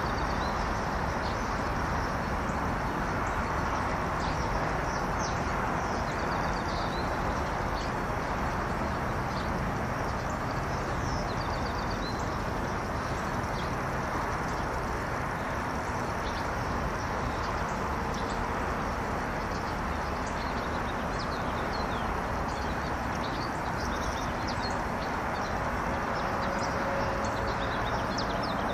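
A steady, unbroken whooshing rush of noise from the sky, of unknown source, that sounds kind of like rain and kind of like a train. Short high chirps are scattered over it.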